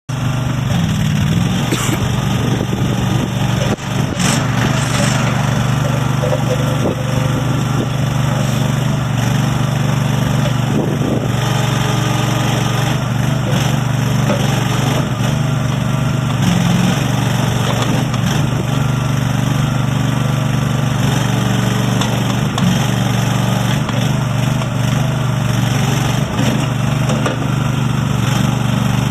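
Terramite T5D backhoe's 20 hp Kohler gas engine running steadily, with a short knock about four seconds in.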